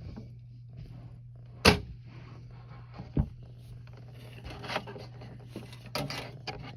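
Scattered knocks and taps from objects being handled, the loudest a sharp knock a little under two seconds in, over a steady low hum.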